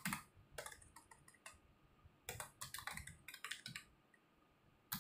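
Faint computer-keyboard typing: two runs of quick keystrokes as a line of text is typed in.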